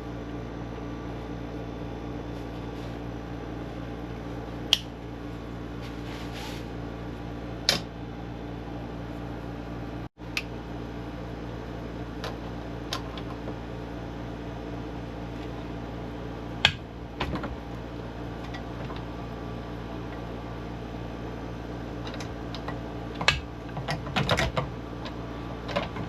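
Scattered sharp clicks and knocks of PEX fittings and tools being handled while the last pipe joints are fitted, over a steady background hum; the clicks come in a cluster near the end.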